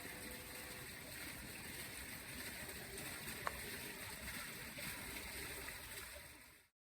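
Faint, steady background hiss, with two faint low tones dying away in the first second and a single sharp click about three and a half seconds in. The sound cuts off abruptly just before the end.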